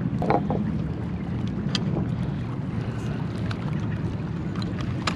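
Steady low drone of a boat engine running out on the water, with a few short sharp clicks.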